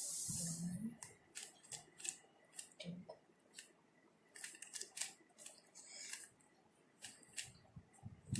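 Plastic 3x3 Rubik's cube being turned through a move sequence: quick irregular clicks and scrapes of its layers rotating, a few a second. A short hiss ends about a second in.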